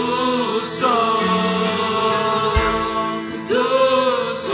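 Live Christian worship music: a band with guitar and drum kit playing under long, held sung notes, with a deep bass-drum thump about two and a half seconds in.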